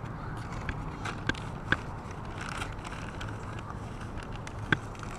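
Steady low outdoor background rumble, with a handful of sharp clicks scattered through it, the loudest two about a second and a half in and near the end.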